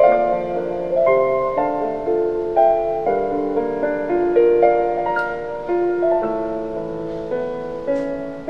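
Background music: a slow piano melody, each note struck and left to ring and fade.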